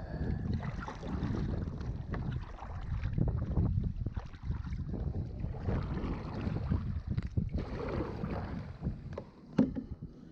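Wind rumbling on the microphone out on the water, with scattered small knocks and handling sounds.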